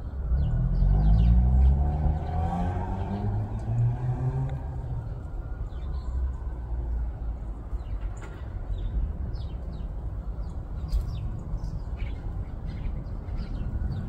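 A motor vehicle passing by, its engine note falling in pitch over the first few seconds and loudest about a second or two in, over a steady low traffic rumble. Small birds chirp briefly and repeatedly throughout.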